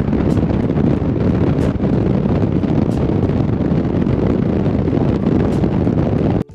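Wind rushing and buffeting the microphone in a moving car, over road noise. It cuts off suddenly near the end.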